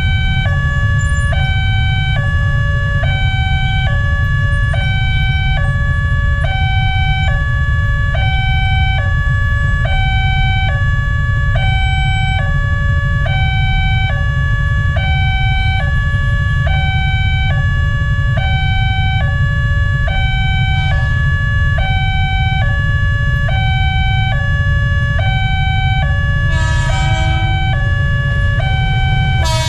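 Railway level-crossing alarm with its new electronic tone, a two-tone chime switching between a higher and a lower pitch about once a second, over a steady low rumble of waiting traffic. Near the end, two horn blasts from the approaching KRL electric train.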